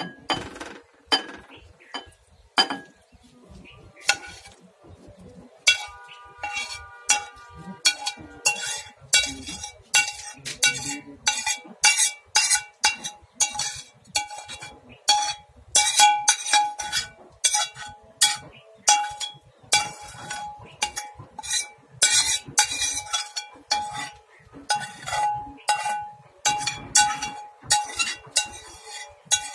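A spoon clinking repeatedly against a bowl as the turmeric pickle is stirred. There are a few scattered strikes at first, then several a second from about six seconds in, each ringing at the same pitch.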